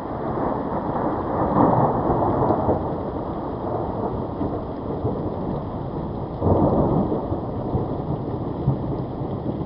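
Steady rain with two rolls of thunder. One builds about a second in, and the other breaks suddenly about six and a half seconds in, then fades.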